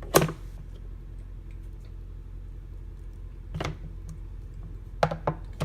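Sharp clacks of hard mount parts being handled and set down: one loud clack at the start, another about three and a half seconds in, and a quick run of three near the end, over a steady low hum.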